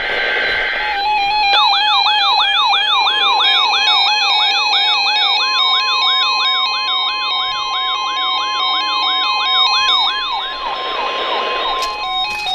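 Emergency weather alert: after a brief data burst, an electronic siren sweeps upward over and over, about three times a second. About halfway through, a steady NOAA Weather Radio alert tone joins it and holds until just before the end. Background music plays throughout.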